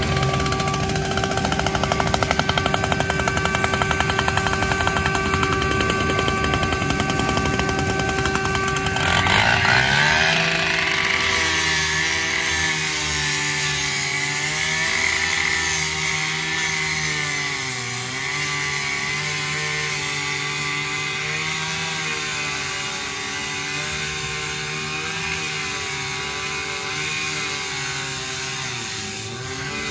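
Handheld rotary rescue saw running at full speed. From about ten seconds in it cuts into a car's sheet-metal hood, and its pitch drops and wavers up and down under the load of the cut.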